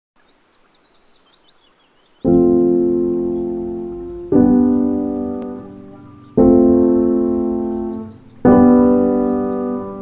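Slow, calm piano music: sustained chords struck about every two seconds, each ringing and fading, starting about two seconds in. A bird chirps briefly before the piano enters and again near the end.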